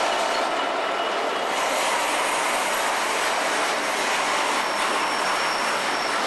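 Loaded car-carrier freight wagons rolling past at speed behind a diesel locomotive: a steady rumble and rattle of wheels on rail, with a faint high wheel squeal near the end.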